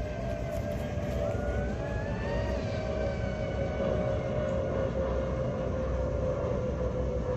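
Radio-controlled boat's electric motor whining from out on the water, a steady high whine whose pitch slowly sags, with a brief rising note about one to two seconds in, over a low rumble.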